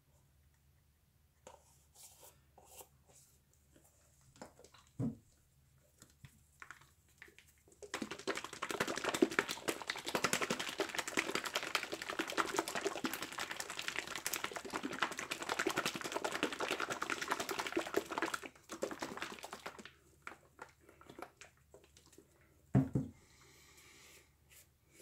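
Small jar of acrylic paint shaken hard by hand for about ten seconds, a dense sloshing rattle, to mix the paint before it is opened. The jar or cups are set down on the table with a soft thud twice, once before and once after the shaking.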